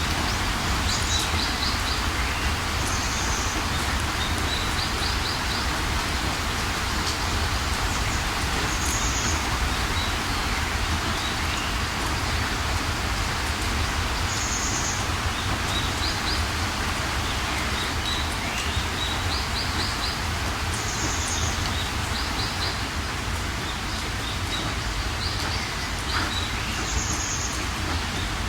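Steady rain falling, an even hiss with a low rumble underneath. Over it, birds call again and again: short high chirps and quick trills of three or four notes every few seconds.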